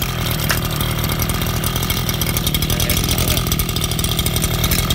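Small 24cc two-stroke brush cutter engine running steadily and loudly, just after being pull-started.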